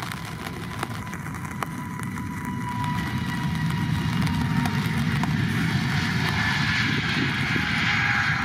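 Jet engines of a Pegasus Airlines Airbus A320-family airliner at takeoff power on its takeoff roll along a wet runway: a steady rumble with a high whine that grows louder from about three seconds in as the jet speeds toward rotation.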